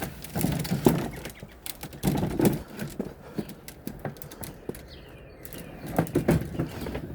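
Clattering knocks, thuds and rustling in three bursts, near the start, about two seconds in and about six seconds in: things being handled and moved about while searching for a lost mower battery.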